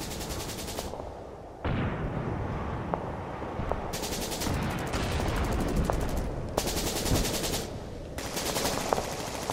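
Battle sound effects: bursts of rapid machine-gun fire over a low rumble, with a few scattered single shots. The bursts come in the first second, again for a couple of seconds from about four seconds in, and in short spurts near the end.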